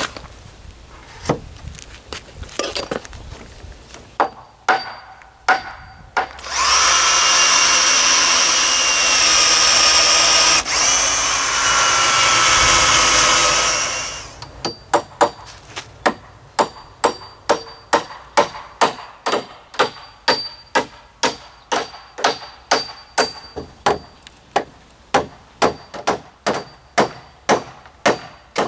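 A claw hammer driving 3-inch galvanized common nails into treated lumber rim joists: a few scattered strikes, then a power drill running steadily for about seven seconds, then a long run of hammer blows at about three a second, each with a brief metallic ring.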